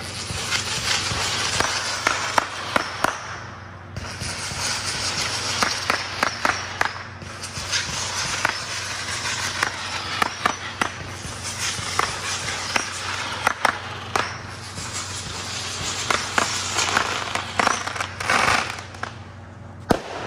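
Fireworks going off in a continuous run: shots bursting into a dense crackle of popping, glittering stars. The crackle swells and dips in waves every few seconds and thins briefly near the end.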